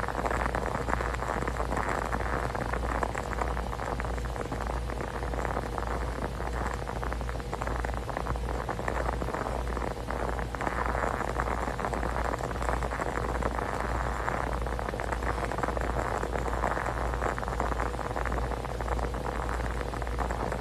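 Steady hiss of background room noise, swelling and easing slightly, with a faint steady hum running through it.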